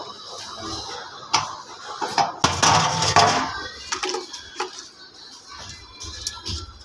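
Scattered clicks and knocks of a sink waste being fitted: a screwdriver working the drain strainer in a stainless-steel sink, and plastic waste-pipe parts being handled. There is a louder stretch of clattering about two and a half seconds in.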